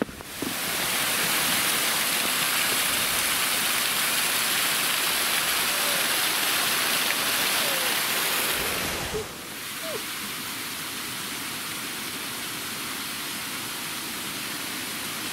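Water rushing over a partly frozen waterfall: a steady hiss that starts just after the opening and drops a little in level about nine seconds in.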